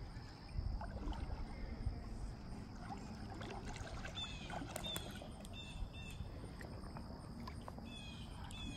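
River water sloshing and splashing as a hooked smallmouth bass is played in close to a wading angler and reached for by hand. A bird chirps in short notes several times in the second half.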